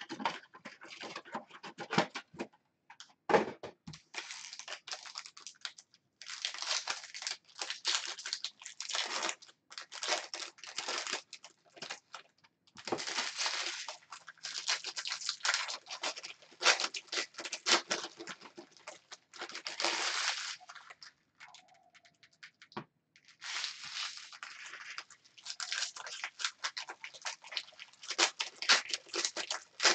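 Foil wrappers of Topps Chrome Jumbo baseball card packs being torn open and crinkled by hand. The rustling comes in repeated spells of a second or two, with short pauses between them.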